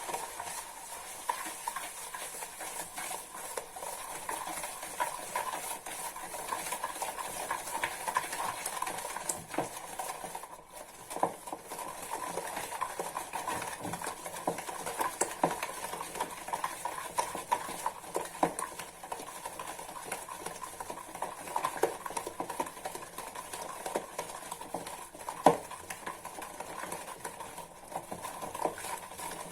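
Eggs and sugar being mixed by hand in a bowl: a utensil clicking and scraping against the bowl in quick, irregular strokes.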